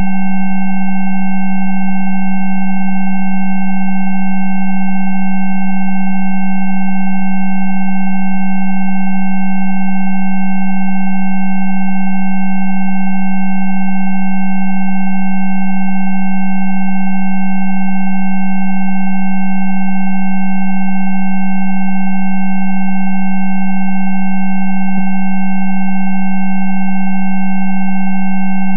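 Electronically generated Rife frequency tones: several steady pure tones sounding together, the low one loudest. The tones hold unchanging in pitch and level.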